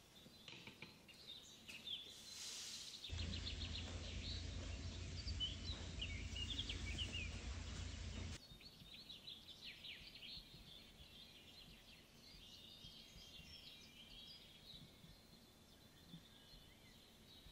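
Faint birds chirping, with a louder stretch of low rumbling noise from about three seconds in that cuts off abruptly about five seconds later.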